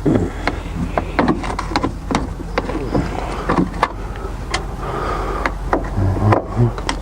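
Irregular clicks, taps and knocks of hand tools and plastic vent parts being worked loose and handled, over a steady low hum.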